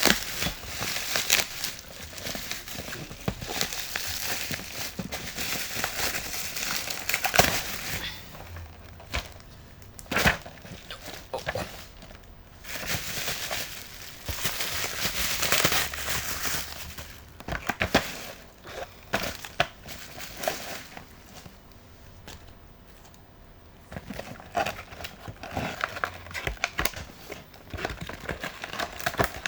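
Packaging being unwrapped by hand: crinkling and rustling in irregular bursts with sharp clicks, and a quieter spell about two-thirds of the way through.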